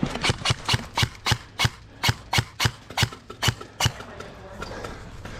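Running footsteps on hard ground, a quick, even patter of footfalls that stops a little before the end.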